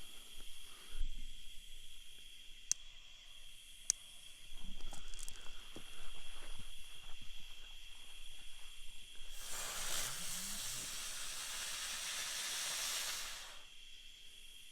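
Ground bloom firework spinning on the ground with a loud hiss for about four seconds, starting a little past the middle and stopping abruptly, after a few small clicks and rustles.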